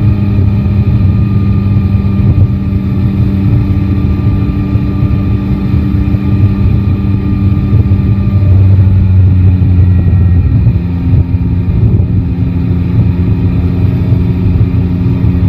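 Yamaha Tracer 9 GT's 890 cc inline-three engine running at low, steady revs, its pitch shifting slightly about ten seconds in.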